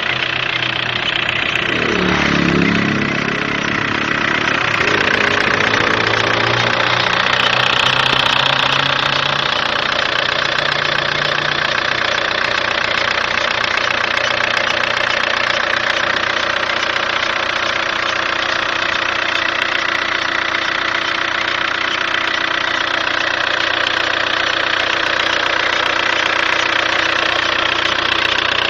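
Seat Leon 1.9 TDI four-cylinder diesel engine running, with a noise the owner calls strange. The engine note changes pitch about two seconds in and shifts over the next several seconds, then settles into a steady idle.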